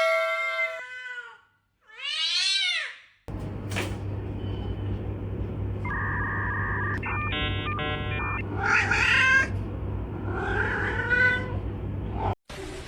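A domestic cat meowing: two long, drawn-out meows in the first three seconds. Then the sound changes suddenly to a steady low hum, with a few short steady tones and two more meow-like calls.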